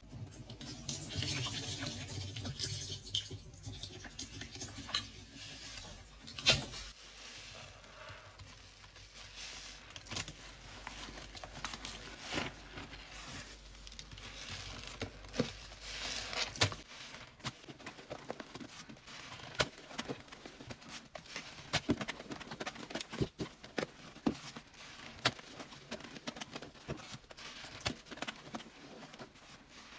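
Wet sponge loaded with a thick paste of powdered cleanser and water being squeezed and worked: squelching and crackling lather with many small pops and clicks, one sharp one about six and a half seconds in. A steady low hum runs underneath until a little past halfway.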